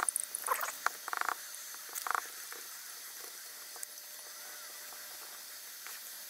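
Felt-tip Sharpie marker squeaking in a few short strokes as it inks over a small piece of thin can metal, then a faint steady hiss.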